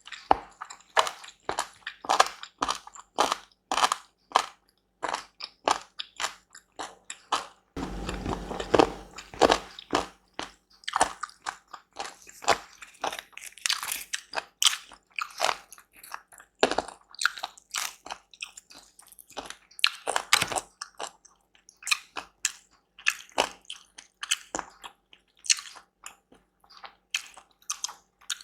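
A person eating close to the microphone: steady chewing with many crisp, crunching bites, a few each second. There is a brief low rumble about eight seconds in.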